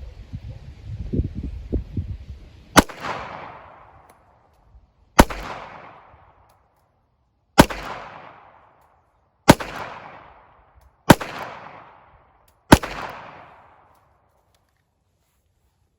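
Six shots from a Ruger LCP .380 ACP pocket pistol firing full-metal-jacket rounds, spaced about two seconds apart, each followed by an echo dying away over about a second.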